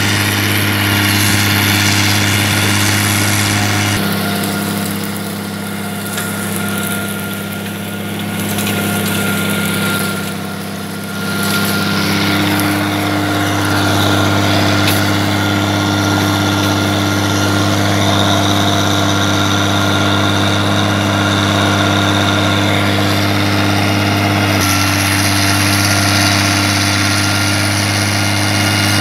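Farm tractor's diesel engine running steadily while pulling a planter, with a constant low hum. The engine note shifts abruptly about four seconds in and again near the end.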